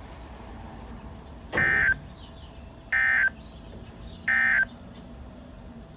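NOAA Weather Radio Emergency Alert System end-of-message signal: three short bursts of digital SAME data tones, about 1.4 s apart, marking the end of the Required Weekly Test. Faint radio hiss sounds between the bursts.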